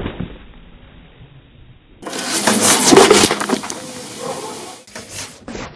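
A car tyre crushing soft-drink cans on brick paving: the cans burst with sharp crackling pops and the soda sprays out in a fizzing hiss. A short crackle at the start ends in a lull, then a longer burst of crunching and spraying comes about two seconds in, loudest about three seconds in and fading out a couple of seconds later.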